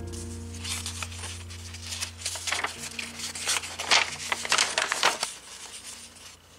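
A folded paper instruction sheet being unfolded and handled: a run of crackling, crinkling paper rustles, busiest in the middle and thinning out near the end. Soft background music runs underneath.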